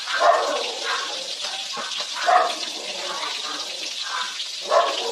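Pot of mung bean soup with shrimp at a rolling boil, bubbling steadily. Three short louder sounds stand out over the bubbling: one just after the start, one about halfway and one near the end.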